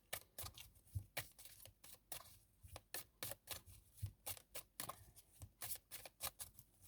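Tarot cards being handled on a table: faint, irregular light clicks and soft rustles, a few a second.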